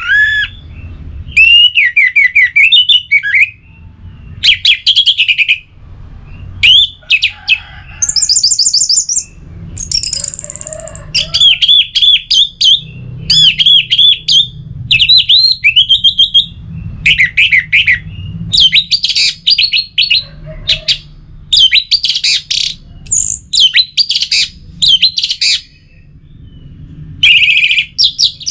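Orange-headed thrush singing: a loud, varied run of quick whistled phrases broken by short pauses, with some very high, thin notes mixed in.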